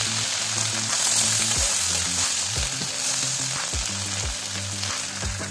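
Whole masala-coated fish sizzling steadily as they shallow-fry in oil on a hot iron tawa, with a spatula moving among them; the fish are well browned and nearly done. A low background music track with a slow beat runs underneath.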